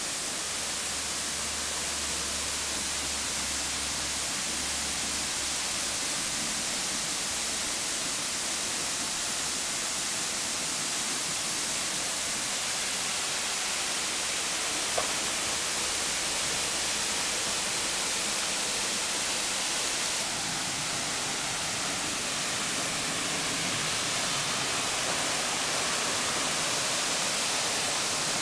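Steady rushing noise of falling water from the Pesegh waterfall, a cascade about 30 m high on the Valmolina torrent, growing slightly louder toward the end.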